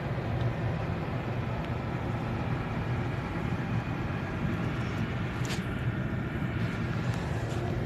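Steady low rumble of an idling vehicle engine, with a faint short click about five and a half seconds in.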